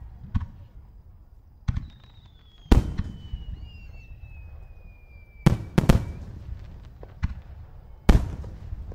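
Aerial firework shells bursting: about eight sharp reports at irregular intervals, each trailing off in a low rumble, with a quick cluster of three about halfway through. A thin whistle slides slowly down in pitch between about two and six seconds in.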